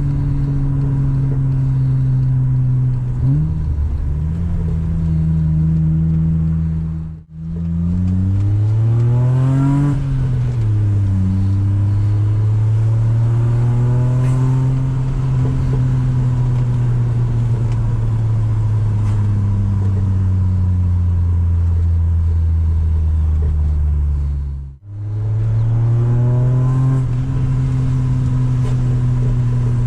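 A BMW E36 320i's 2.0-litre straight-six, run without catalytic converters, heard on the move. It cruises at steady revs for long stretches, climbs in revs and drops back as a gear is changed, then settles again. The sound cuts out briefly twice.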